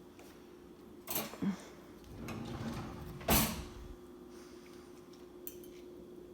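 Kitchen handling sounds as a fork is fetched and used: a few short knocks and clatters, the loudest about three seconds in, over a steady low hum.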